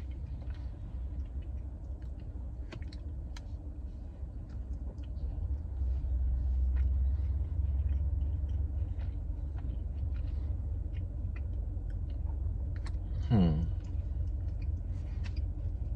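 A man chewing a cookie, with soft faint mouth clicks over a steady low rumble inside a car. Near the end there is one short sound that slides down in pitch.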